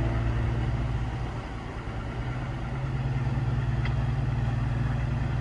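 An engine running with a steady low hum. It eases off about a second and a half in, then builds back up.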